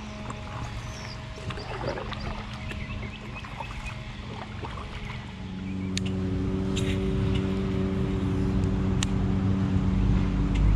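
An engine running at a steady pitch, growing louder from about halfway in, with a few sharp clicks over it.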